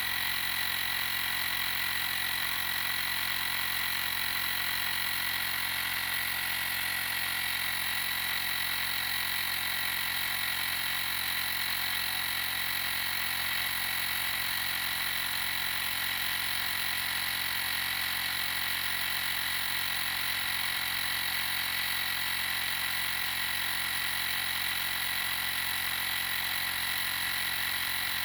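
TackLife portable 12 V tire inflator's compressor running continuously while pumping up a car tire: a steady mechanical drone with a high whine that does not change.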